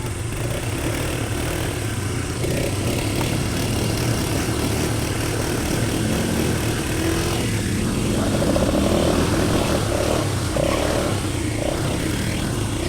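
ATV engine running steadily under way, its pitch shifting a little in the second half.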